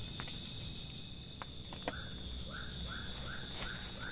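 A frog calling in a series of short rising-and-falling notes, about two or three a second. The calls pause in the first half and start again about halfway through, over a steady high insect drone, with a few faint knocks.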